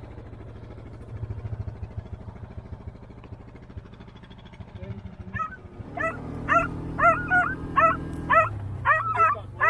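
Side-by-side buggy engine running steadily, then picking up revs about six seconds in, while pig-hunting dogs let out a run of high-pitched yelps and whines through the second half.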